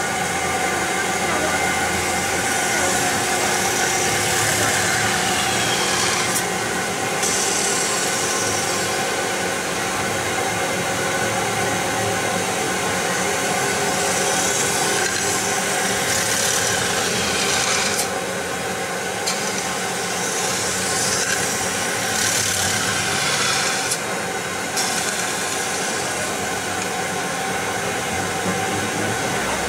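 CNC metal spinning machine forming a sheet-metal fan shell: the roller rubs against the spinning blank on its mandrel, giving a steady rasping, scraping hiss over the machine's hum. The high hiss swells and then cuts off sharply several times.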